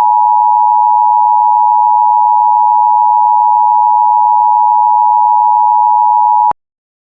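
Emergency Alert System attention signal: a loud, steady two-tone beep, held for several seconds, then cut off suddenly about six and a half seconds in. It announces that an emergency alert message is about to be read.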